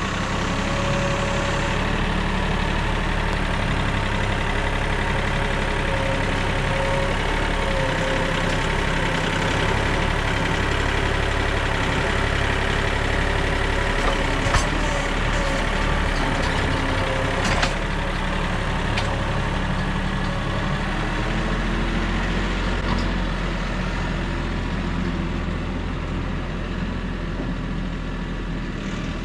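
A vehicle engine running steadily with a constant low hum, with a couple of faint clicks about halfway through.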